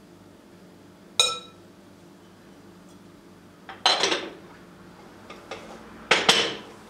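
A metal spoon and glass dishes clinking against a glass mixing bowl on a stone countertop: a single ringing clink about a second in, then two short clattering knocks around four and six seconds.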